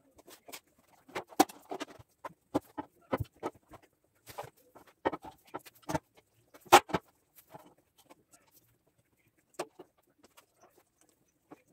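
Irregular knocks and clatters of long metal gate-frame tubes being set down and shifted on a wooden worktable, the loudest knock about seven seconds in.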